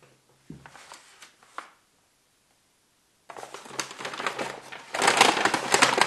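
Brown paper gift bag crinkling as it is pulled open and hands rummage inside it. A short rustle comes first, then after a pause a longer run of crinkling that grows louder toward the end.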